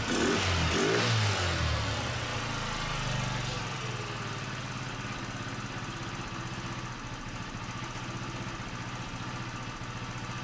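Scooter engine freshly started: blipped a few times in the first couple of seconds, then settling into a steady idle. The owner still hears a misfire in it and puts it down to the carburettor needing adjustment.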